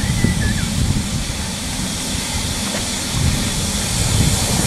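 Ex-British Army 0-6-0 saddle tank steam locomotive working at the head of the train, heard from the coach behind it: a steady hiss of steam over a low, uneven rumble.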